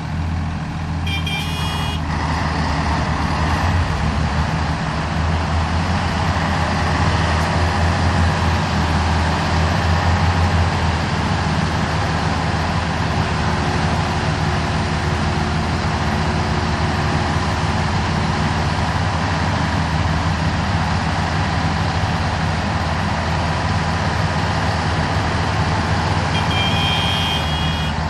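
Heavy diesel engines of a backhoe loader and a crane truck running in a steady deep drone. A short high-pitched tone sounds twice, about a second in and near the end.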